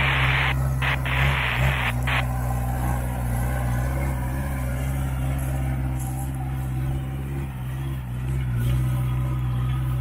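Engine of a lifted off-road pickup running at a steady, low drone as the truck crawls up a grassy slope. A rush of noise comes and goes in the first two seconds.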